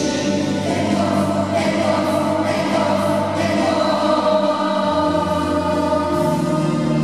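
A group of schoolchildren singing a song together as a choir, holding long notes.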